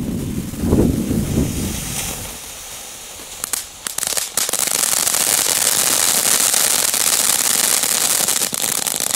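WECO Double Star two-stage firework battery going off: a few low thumps in the first two seconds and some sharp cracks around four seconds in, then a steady, loud hiss of a spark fountain for about five seconds.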